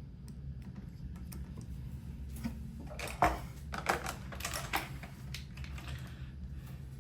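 Light clicks and rattles of electrical wires and connectors being handled in a switch box, the sharpest click a little after three seconds in and a quick cluster of clicks around four to five seconds in.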